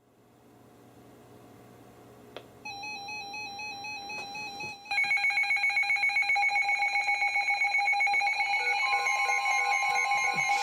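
Several NOAA weather radios going off together with their alert alarms. A warbling tone starts about two and a half seconds in, a much louder mix of beeping and warbling alarm tones joins about five seconds in, and another steady tone enters near the end. The alarms announce an incoming flood warning.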